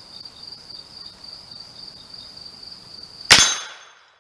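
Single shot from an 1866 Trapdoor Springfield rifle in .50-70 Government, a black-powder cartridge, fired a little over three seconds in with a short dying tail. Before it, a steady high-pitched pulsing chirr.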